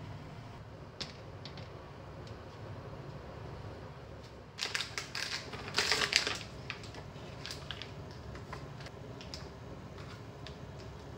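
Clear plastic packaging of sliced ham crinkling as it is opened and handled, loudest for about two seconds near the middle. Small ticks and taps follow as the ham slices are peeled apart on a plastic cutting board.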